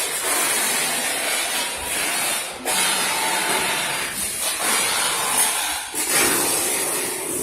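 Steady hissing workshop noise in a large room, dipping briefly about two and a half and six seconds in.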